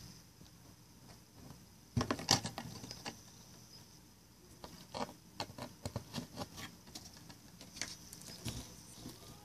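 Scattered light taps and clicks of toy horses being handled and moved about a cardboard stable, in a cluster about two seconds in and then irregularly.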